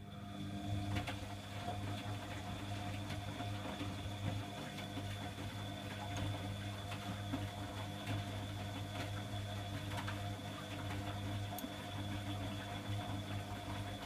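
Bosch WFG2020 front-loading washing machine running its Cotton 60 wash: the drum motor hums steadily as the drum turns the laundry through water, with light sloshing and small clicks. The hum comes in just at the start.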